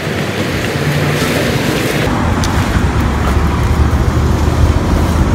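City street traffic noise, with a steady low engine rumble from a nearby vehicle that grows stronger about two seconds in.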